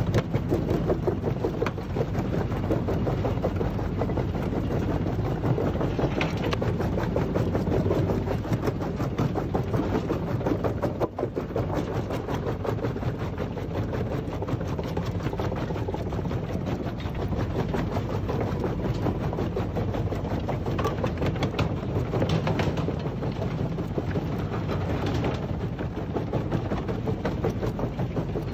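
Screencore XL Dual-Power jaw crusher running steadily under load. Its jaw crushes brick and concrete demolition rubble with continual cracking and knocking over the machine's steady hum.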